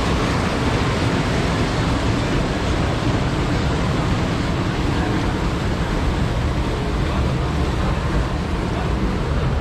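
Steady rush of water on a river rapids boat ride, with wind rumbling on the microphone.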